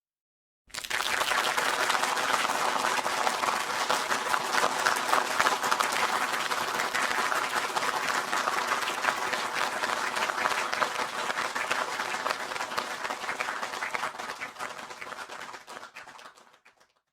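Crowd applause with clapping, starting suddenly about a second in and fading away near the end.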